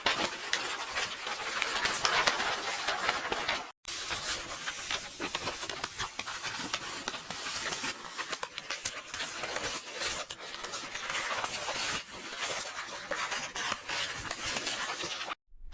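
Paper pages of a book turning and rustling, a continuous crackle of many small paper clicks, broken by a brief silent gap about four seconds in and again near the end.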